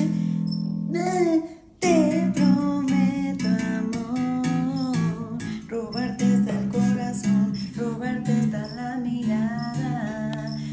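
Electric bass guitar played note by note, with a woman's voice singing the melody over it; the music breaks off briefly about a second and a half in, then carries on.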